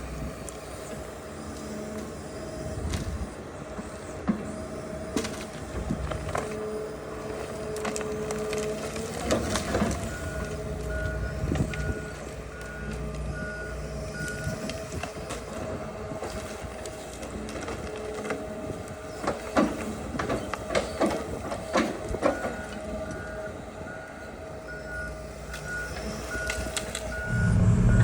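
Excavator engine running steadily under hydraulic load, with a warning alarm beeping about twice a second in two spells, from about ten seconds in and again near the end. Clusters of sharp knocks and clanks come twice, as the grab works.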